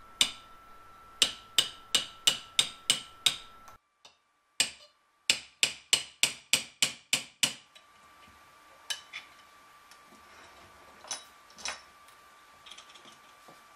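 A hammer striking a steel dapping punch into copper sheet clamped in a vise, each blow a sharp metallic tap, denting the copper for air chasing. Two quick runs of blows, about three to four a second, separated by a brief break, then a few faint scattered knocks.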